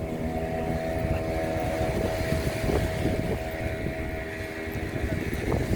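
An engine running steadily with a droning hum, with wind buffeting the microphone.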